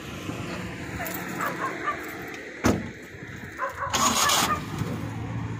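A car door shuts with a single sharp bang. About four seconds in the small car's engine cranks and catches, then settles into a steady low idle.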